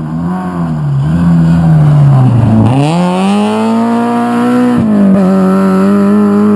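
Rally car engine on a gravel stage: the note wavers and sinks for the first couple of seconds, then climbs steeply under hard acceleration and holds a high, steady pitch, with a brief dip about five seconds in.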